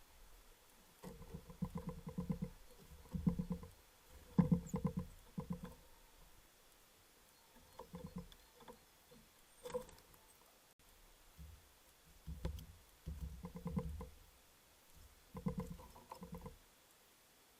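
A blue tit pecking and tapping at a bird feeder, heard close up as bursts of rapid small taps with dull knocks underneath, stopping and starting every few seconds.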